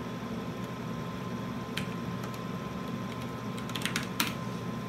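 Keystrokes on a computer terminal keyboard: a single key press, then a quick run of several presses near the end, entering an editor command. Under them runs a steady low hum.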